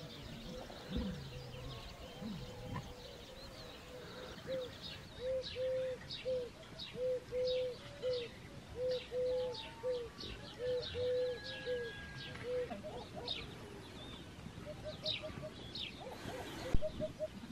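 A dove cooing in phrases of three low notes, repeated about four times, over the scattered high chirps of small birds. A single sharp knock sounds near the end.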